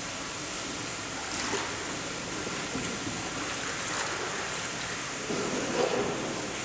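Steady rush and lapping of koi pond water at the edge, with a short louder stretch of sloshing about five and a half seconds in.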